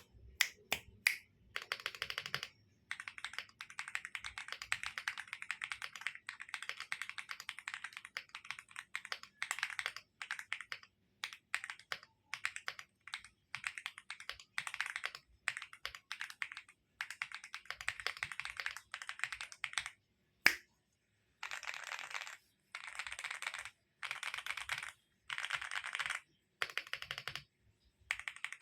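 Typing on an Aula F75 mechanical keyboard fitted with cheap ABS keycaps: a few separate key clicks, then long runs of fast typing. About two-thirds of the way in there is one sharp, louder click, followed by short bursts of rapid typing, each about a second long, with pauses between them.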